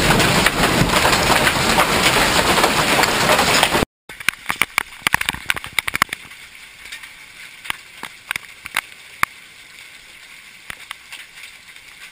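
Hailstorm: hail pounding down in a loud, dense clatter for about four seconds. Then, after a cut, a much quieter patter of scattered sharp hits, several a second at first and thinning out.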